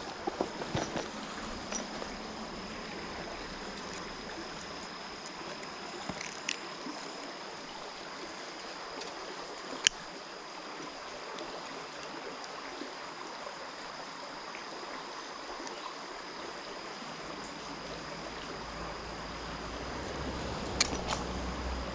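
Steady rushing of a creek, with a thin steady high tone running over it. A few light knocks near the start and one sharp click about ten seconds in.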